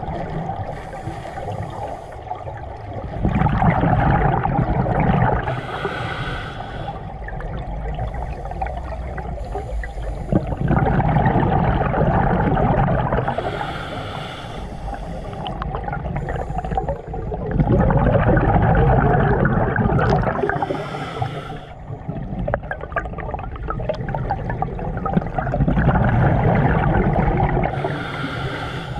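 Scuba diver breathing underwater through a regulator. A gush of bubbling comes with each exhale, about every seven or eight seconds, with a shorter high hiss of the inhale between them. Four breaths are heard.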